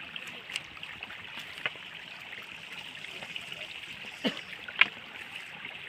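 Steady rushing hiss of running water, like a mountain stream. Two short, louder sounds come about four and a half seconds in.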